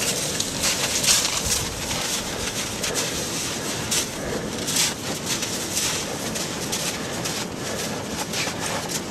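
Crusty snow crunching and scraping as a dog slides face-down through it, pushing itself along with its hind legs. It is a steady rough rushing with louder scratchy scrapes now and then.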